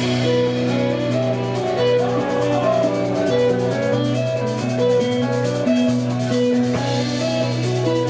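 Live band playing an instrumental passage: electric guitar, keyboards and drums. A low held note sits under a line of higher notes moving in steps, with cymbals washing in near the start and again near the end.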